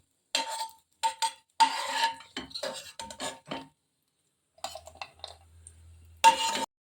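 Metal spoon scraping and clinking against a steel kadhai and plate as roasted dry fruits are scooped out, the metal ringing briefly after several strikes. A pause, a few softer scrapes, then one louder clatter near the end.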